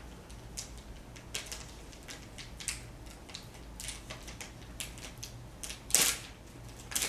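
Plastic packaging crackling and crinkling in a child's hands as a cut-open resealable bag is pulled apart, with a louder rustle about six seconds in.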